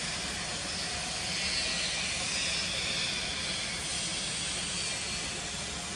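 Steady outdoor hiss over a low rumble, with a brighter high-pitched band that swells about a second in and eases off in the second half.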